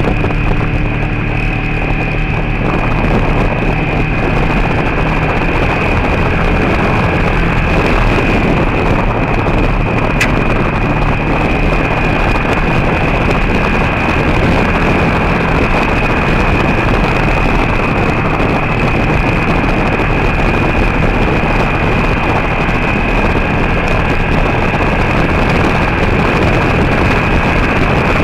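Vehicle driving on a gravel road: steady road, tyre and wind noise with a low rumble and a faint steady whine, plus a single brief click about ten seconds in.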